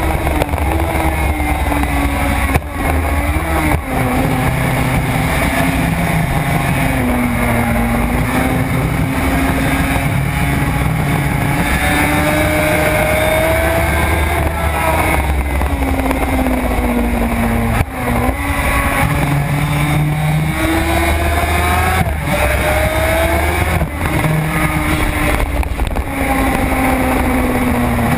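Suzuki RG500's square-four two-stroke engine running hard on track, heard from on board: the engine note rises and falls with the throttle, with a few brief dips in the sound.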